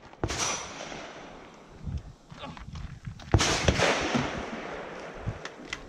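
Two loud gunshots about three seconds apart, each followed by a long echo off the berms, with fainter knocks in between.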